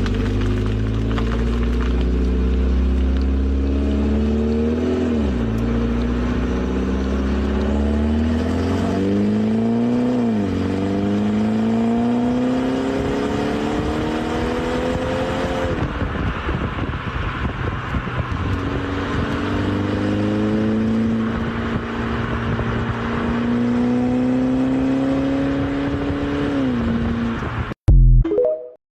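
BMW 530e's B48 2.0-litre turbocharged four-cylinder engine on its stock exhaust, pulling hard through the gears. The engine note climbs steadily and then drops at each upshift, four times, over steady road noise. A short loud knock comes just before the end.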